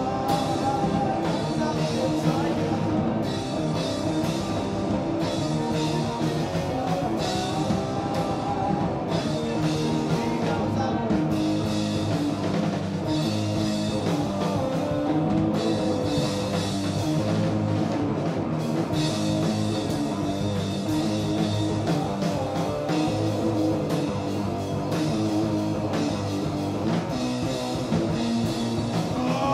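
Heavy rock played live by a guitar-and-drums duo: loud distorted electric guitar over a drum kit with frequent cymbal crashes, continuing without a break.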